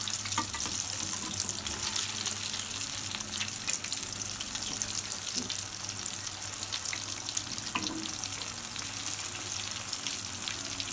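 Flour-coated fish pieces deep-frying in hot oil in a kadhai, a steady sizzle full of small crackles, with a slotted spoon moving through the oil to turn them.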